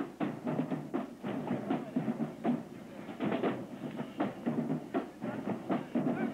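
Marching band drumline playing a marching cadence: a steady run of quick, sharp drum strokes, several a second.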